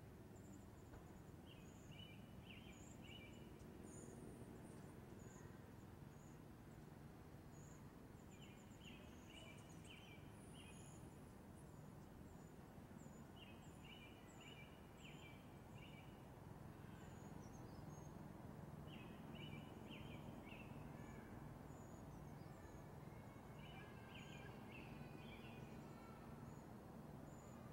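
Faint birdsong: a short phrase of several quick notes repeated about every five seconds, with scattered thin, very high notes between, over a low steady background rumble.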